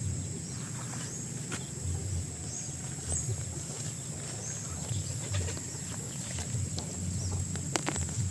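Rural outdoor ambience: a steady high-pitched insect drone with short bird chirps repeating every second or so, and a few light clicks and rustles.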